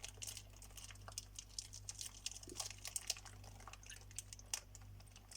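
Faint, scattered small clicks and ticks of plastic ice-cube bags being handled and filled with lemon concentrate.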